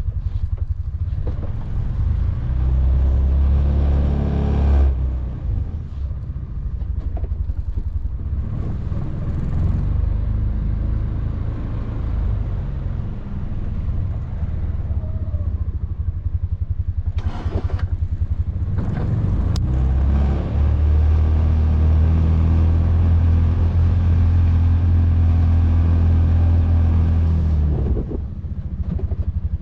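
Can-Am Defender side-by-side's engine running while plowing snow, the revs building for a few seconds early on and held up steadily for several seconds in the second half before easing off near the end.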